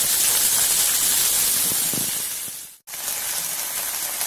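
Chopped cluster beans sizzling in hot oil in a stainless-steel kadai, a steady frying hiss. It fades out briefly a little before the 3-second mark and comes back.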